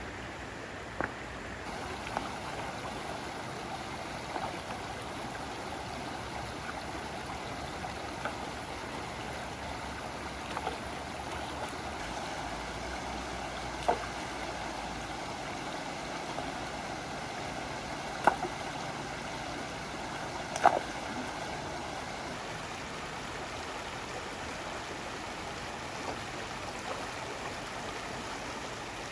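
Shallow stream flowing steadily, broken by a few short sharp sounds, the loudest about 18 and 21 seconds in.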